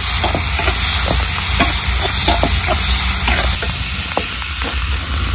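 Onions and tomatoes sizzling in hot oil in a cooking pan, with irregular clicks and scrapes of a spoon against the pan as they are stirred.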